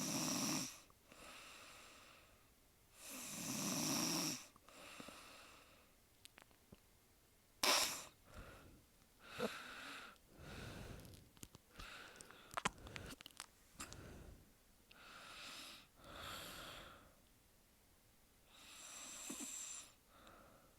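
A young woman snoring in her sleep, each snore a breath-long swell a few seconds apart, the two loudest at the start. About eight seconds in there is one sharp, sudden sound, followed by several seconds of uneven breathing with small clicks before a snore returns near the end.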